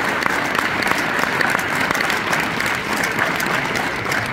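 Audience applauding, the steady clapping of many hands at once.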